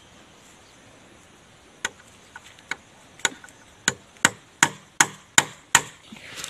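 About ten sharp knocks on bamboo, starting about two seconds in and coming faster and louder, each with a short ring.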